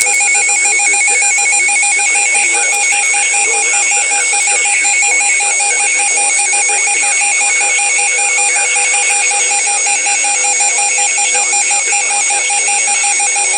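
Electronic weather alert alarm beeping in a fast, even pulse of two-pitch tones over a hissing background: the alert for a tornado warning.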